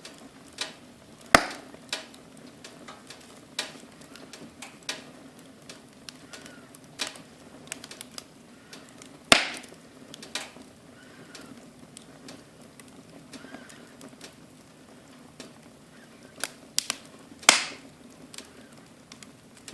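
Wood fire crackling in a fireplace: irregular sharp pops and snaps over a steady low background. Three pops are loudest: about a second in, about halfway, and near the end.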